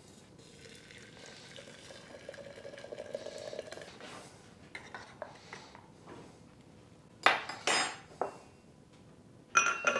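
A metal teaspoon scooping loose tea leaves from a glass jar and tipping them into a porcelain teapot: soft scraping and rustling at first, then light ticks. About seven seconds in come two loud clinks of the spoon against the china, and near the end there is a ringing clatter as the porcelain lid is set on the teapot.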